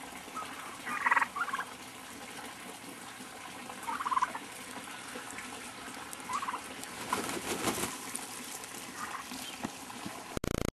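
Heritage turkeys gobbling in short rattling bursts, several times over.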